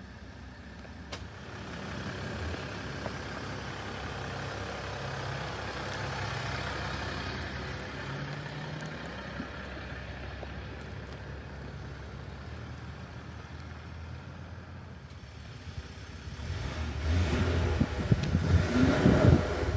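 Ram 1500 EcoDiesel's 3.0-litre V6 turbodiesel running at idle from the exhaust. It is steady and grows louder over the last few seconds as the exhaust tip is close by.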